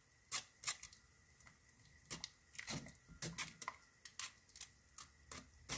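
Spoon pressing and scraping doenjang against a stainless-steel mesh strainer dipped in hot broth: faint, irregular clicks and scrapes, a few each second.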